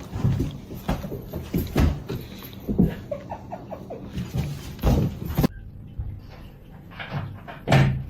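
Irregular knocks and thumps, with a few short squeaks about three seconds in. The sound drops off abruptly about five and a half seconds in, after which a few more thumps follow.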